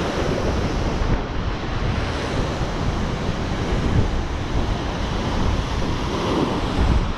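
Heavy ocean surf churning and breaking against a rocky lava shoreline, a steady roar, with wind buffeting the microphone.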